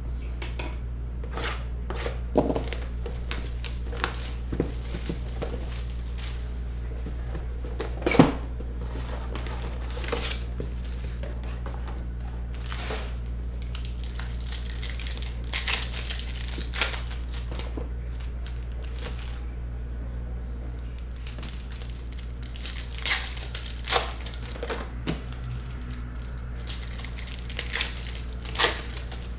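Foil trading-card packs crinkling and tearing as they are opened by hand, with scattered rustles and sharper crackles of wrappers and cards, over a steady low hum.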